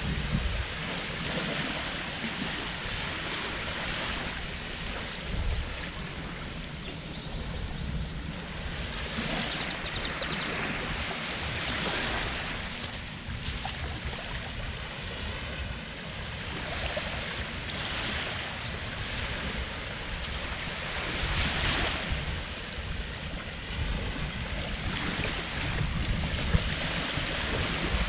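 Ocean surf washing onto a sandy beach, the wash swelling and easing every few seconds, with wind rumbling on the microphone.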